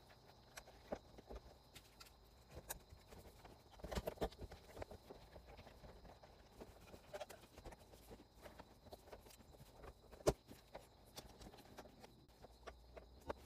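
Faint, irregular clicks and taps of plastic interior trim and wiring being handled and pushed back into place, with a cluster of them about four seconds in and one sharper click about ten seconds in.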